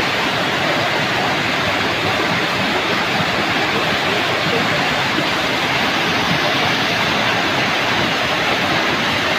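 Rain pouring down, a steady, even hiss.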